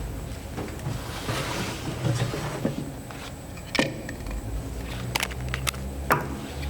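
Hand work on boat steering parts: a few sharp clicks and knocks of parts and tools being handled, the strongest about four seconds in and three more soon after, over a low rumble that starts past the middle.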